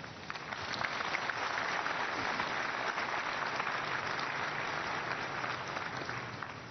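Congregation applauding: many hands clapping together, swelling over the first second, holding steady, then dying away near the end.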